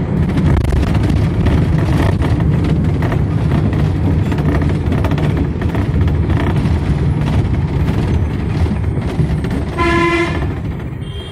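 Local bus running along the road, heard from inside: steady low engine and road noise with many small rattles and knocks. About ten seconds in, a horn gives one short toot.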